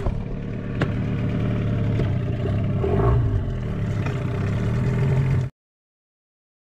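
Hidea 15 hp outboard motor on an inflatable boat running steadily underway, with a brief change in engine pitch about three seconds in. The sound cuts off abruptly about five and a half seconds in.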